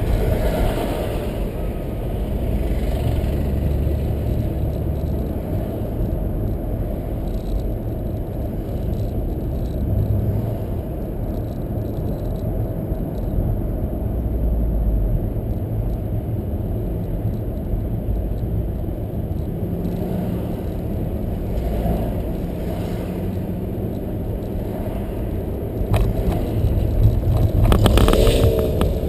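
Car driving along a road, heard from inside: a steady low rumble of engine and tyres. It gets louder near the end, with a few sharp knocks.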